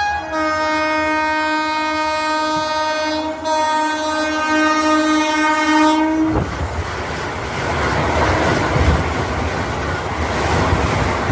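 Vande Bharat Express electric train sounding a long horn blast, broken briefly about three seconds in. After about six seconds the horn stops and the loud rush and rail clatter of the train passing at speed takes over.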